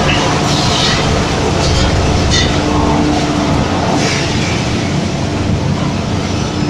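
Lintec CSD 3000 asphalt mixing plant running in production: loud, continuous machinery noise with a steady hum from its electric motors and drives, and brief hissing surges now and then.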